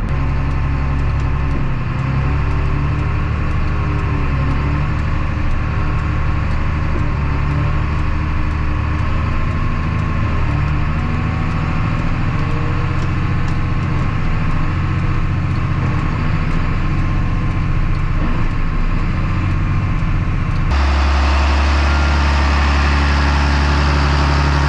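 John Deere 8110 tractor's six-cylinder diesel engine running as the tractor is driven, heard from inside the cab, with a faint ticking about twice a second. Near the end the sound switches suddenly to the tractor heard from outside, a heavier, louder low rumble.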